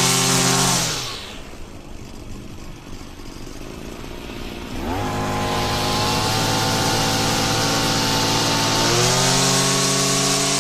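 Zenoah BCZ265 brush cutter's small two-stroke engine being revved: it drops from high revs to idle about a second in, idles, then is throttled up again around five seconds and rises higher still near the end.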